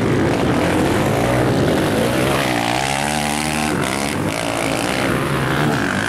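Off-road motorcycle engines racing on a velocross track, with one bike's engine revving up and back down in the middle.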